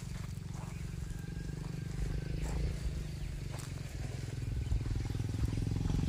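A small engine running with a low, steady rumble that grows somewhat louder over the last couple of seconds.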